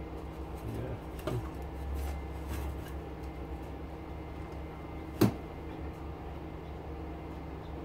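Gloved hands handling and turning an aluminum pot light housing on a metal workbench: faint rubbing and knocking noises, with one sharp knock about five seconds in, over a steady low hum.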